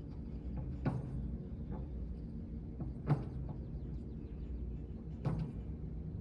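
Three sharp, drum-like knocks, evenly spaced about two seconds apart, over a low steady hum.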